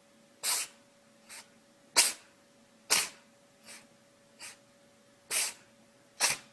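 An animal sneezing over and over: five sharp sneezes with three fainter ones in between, each short and sudden.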